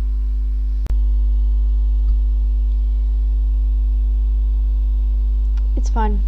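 Steady electrical mains hum with a stack of overtones, picked up in the voice recording. About a second in there is a sharp click where the sound drops out for an instant, and near the end a brief falling vocal sound.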